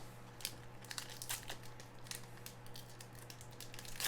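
A trading-card pack wrapper crinkling and tearing as it is opened by hand, with many short irregular crackles and the rustle of the cards being handled.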